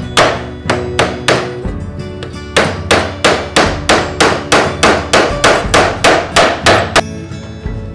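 Hammer blows on nails driven into a solid-wood toolbox: three strikes, a short pause, then a quick steady run of about fifteen, roughly three a second, stopping about seven seconds in.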